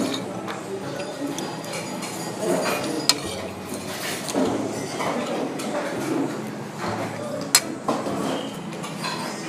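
Spoon and fork clinking and scraping against a ceramic plate and soup bowl while eating, with two sharper clinks a few seconds apart, over the murmur of a busy dining room.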